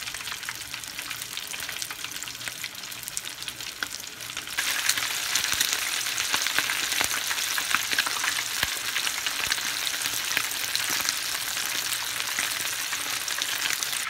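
Flour-dusted parrot fish sizzling and popping as it deep-fries in hot oil, getting louder about four and a half seconds in.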